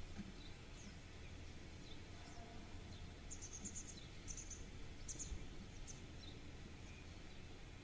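Faint outdoor background noise with a steady low rumble, and a few short, high chirps repeating in the middle.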